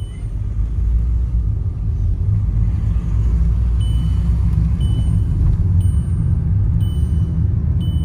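Steady low rumble of a car's engine and tyres heard inside the cabin while driving slowly. From about four seconds in, short high beeps come roughly once a second.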